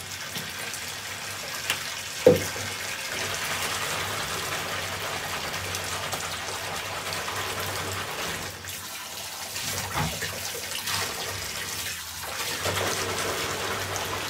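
Bath tap running steadily into a tub of foamy, shampooed water, with a hand swishing through the water. A sharp knock about two seconds in.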